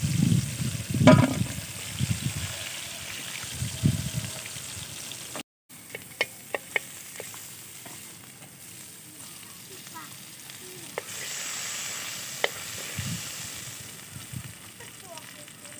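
Hot cooking oil sizzling in a wok as deep-fried chicken wings are lifted out with a wire strainer, with knocks of the strainer and wings against the pan and a steel bowl in the first few seconds. After a brief break, a little oil left in the emptied wok sizzles steadily, with scattered sharp clicks.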